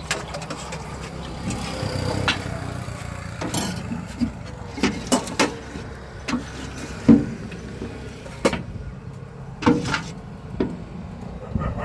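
Street-stall clatter: irregular sharp clicks and knocks of metal utensils over a steady low hum of engines or traffic.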